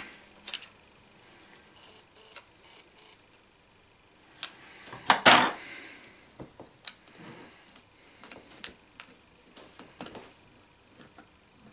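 Scissors snipping the corners off a small square of polyester filter film, then small clicks and taps as the film is handled and fitted into the rear filter slot of a wide-angle lens. A louder clatter comes about five seconds in.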